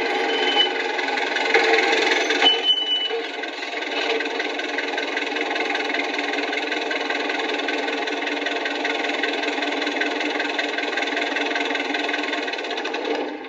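A machine running steadily with a fast, even mechanical rattle, briefly changing about two and a half seconds in, then fading out at the end.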